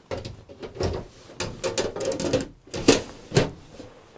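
A door being put back in place: a string of knocks and rattles, the two loudest close together near the end.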